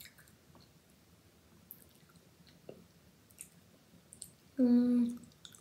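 Faint scattered small clicks, then near the end a short, steady hummed 'hmm' in a girl's voice, lasting about half a second.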